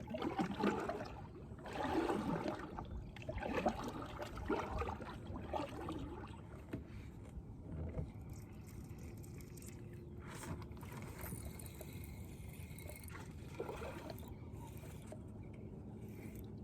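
Water splashing and trickling around a kayak, with some scraping of handling against the boat; the splashes come in an irregular run over the first several seconds, then it settles to quiet water and small knocks.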